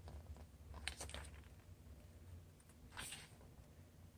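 Near silence with a low steady hum and a few faint paper rustles from the K-pop album's photobook pages being handled, about a second in and again about three seconds in.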